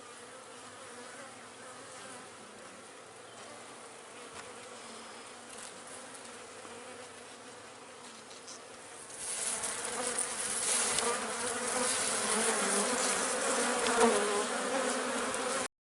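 Honeybees buzzing over an open hive: a steady hum that swells much louder about nine seconds in as bees come close, then cuts off abruptly just before the end.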